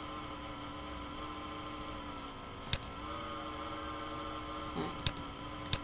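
Steady electrical hum with several level tones, broken by three sharp clicks: one a little under three seconds in, one about five seconds in, and one near the end. The clicks are computer mouse clicks.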